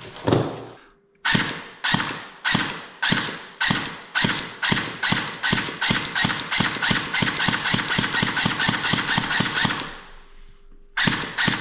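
Cyma CM030 electric airsoft pistol test-fired after a gearbox rebuild, shot by shot: sharp clicking shots about every half second at first, then quicker, about four a second, for several seconds before stopping.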